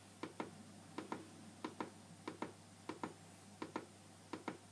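A button being clicked again and again, about one press every two-thirds of a second, each press a quick pair of clicks. Each press steps the letter on a Train Tech smart screen one place along the alphabet.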